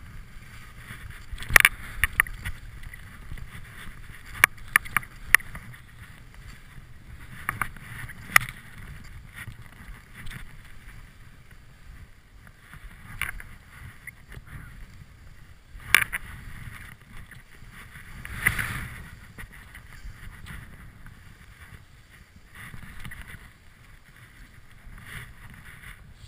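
Skis running through deep powder snow: a soft swishing hiss that swells on several turns, with a handful of sharp knocks and clicks scattered through, the first about a second and a half in.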